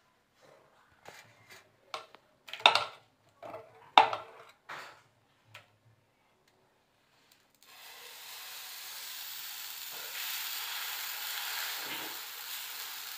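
Steel ladle and spoon clinking and scraping against steel bowls, with two sharper knocks in the first few seconds. About halfway through, a steady sizzle starts suddenly as uttapam batter meets the hot tawa.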